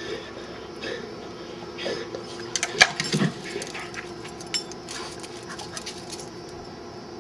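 A dog whimpering, with scattered short clicks and knocks, the loudest about three seconds in, over a steady low hum.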